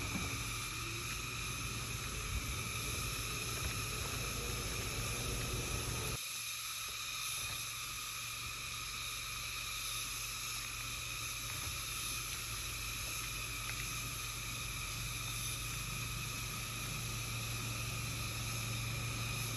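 A compact SUV's engine running at low speed as it creeps along a rough track, a low hum that cuts off abruptly about six seconds in and comes back fainter. A steady high insect chorus runs underneath.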